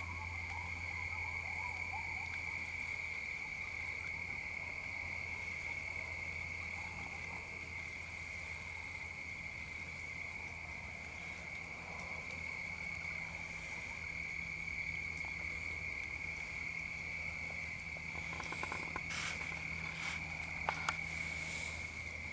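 Steady night chorus of frogs and insects, a continuous high trill at one pitch, with a few sharp clicks near the end.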